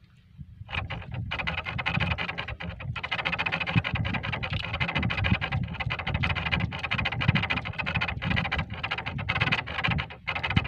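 Nylon handline rasping as it is hauled hand over hand across a wooden boat's gunwale: a continuous scrape with many small clicks, broken by brief pauses between pulls, over a low steady rumble.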